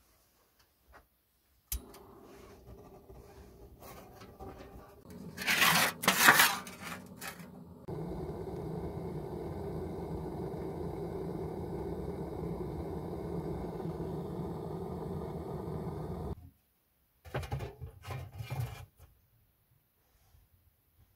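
Gas torch on a canister burning with a steady rush for about eight seconds as it blows its flame into kindling in a brick stove's firebox, then shut off suddenly. Before it, a click and a burst of loud scraping and rustling; after it, a few short knocks and scrapes.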